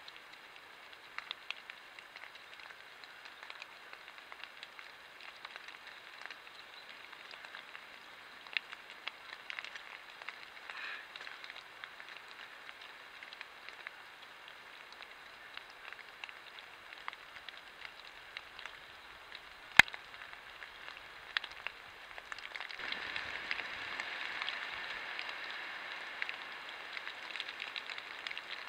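Steady hiss picked up by a trail camera's microphone, with scattered light ticks like water dripping in the forest and one sharp click about two-thirds through. For the last several seconds the noise grows louder and fuller, a rustling stretch.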